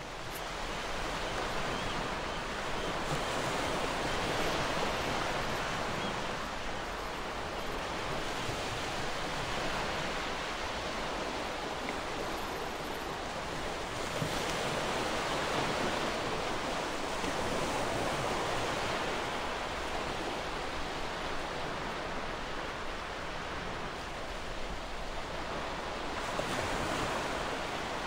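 Ocean waves breaking on a shore: a steady rush of surf that swells and ebbs every few seconds.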